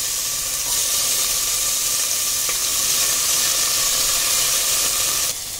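Cubed potato frying in hot ghee with cumin seeds in an aluminium pressure cooker: a steady sizzle, stirred with a wooden spatula, that drops off just before the end.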